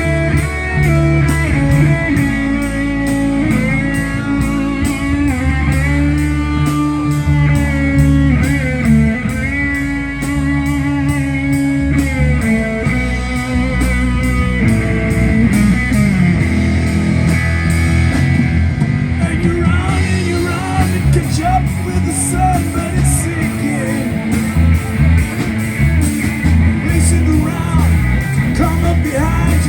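Live rock band playing: a lead line of bending, gliding notes over steady bass and drums, with guitar to the fore.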